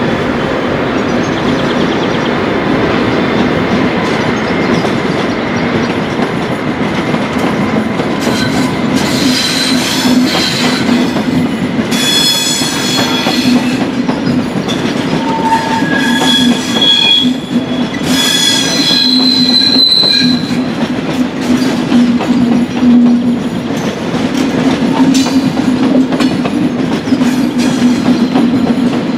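ICE 1 (class 401) high-speed train rolling over points and curves, rumbling, with wheel flanges squealing in several high tones that come and go, most of them in the middle stretch. The squeal comes from the flanges riding up on the outer rail in the curves.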